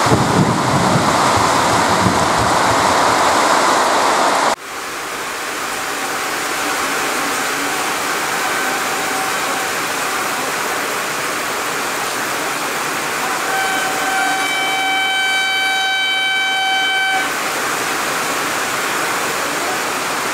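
Heavy rain pouring onto a corrugated metal roof, cut off abruptly a few seconds in. It gives way to a steady hiss of rain and the horn of a WAG-9HC electric freight locomotive: faint at first, then one long blast of about three and a half seconds, two-thirds of the way through.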